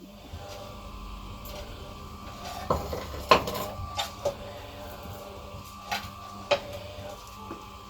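Several sharp clinks and knocks, like dishes or utensils being handled, over a steady low hum.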